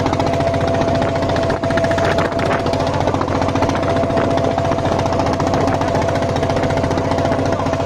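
Engine of a small wooden boat running steadily under way, with a rapid, even beat.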